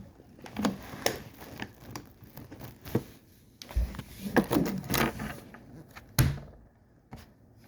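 Irregular clicks, knocks and rattles of plastic prop parts being handled and fitted together, with a sharper knock about six seconds in.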